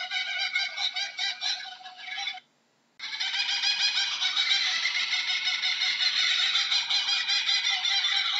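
Laughing kookaburra calling: a dense run of rapid, cackling laugh notes. The calling cuts off abruptly for about half a second around two and a half seconds in, then starts again.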